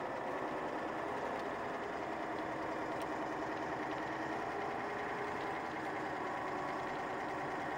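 A truck engine running steadily, heard from inside the cab, while the truck is pulled along on a tow cable behind a bulldozer.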